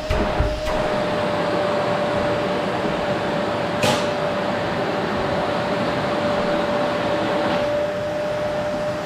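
Qilive vacuum cleaner running steadily: a rush of air with a steady whine from its motor. A few low bumps come right at the start, and there is a short sharp click about four seconds in.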